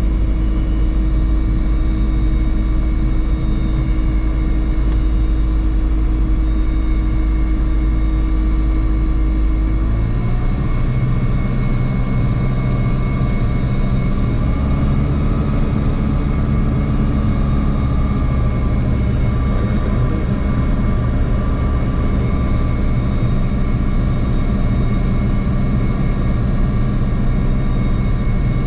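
Diamond DA40's engine and propeller running at low power while taxiing, heard inside the cockpit. About ten seconds in the engine note changes: the deep rumble eases and a steady tone rises slightly in pitch.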